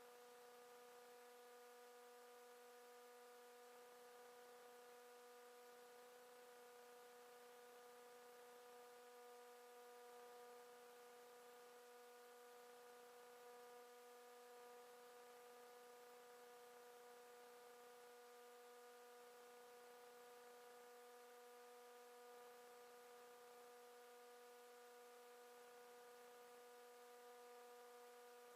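Faint, steady electrical hum: a set of unchanging tones over light hiss, otherwise near silence.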